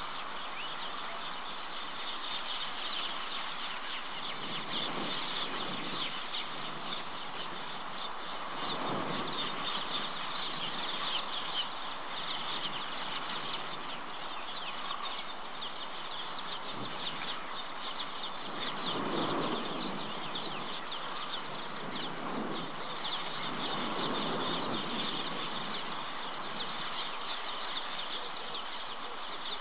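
Many small birds chirping at once in a steady, dense chorus. A few soft, low rushes of noise a second or two long rise and fade several times beneath it.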